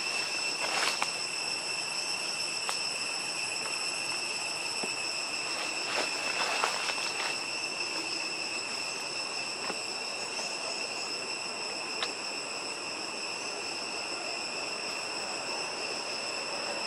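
Steady, high-pitched insect drone of a forest insect chorus, with a few brief rustles in dry leaf litter early on and about six to seven seconds in.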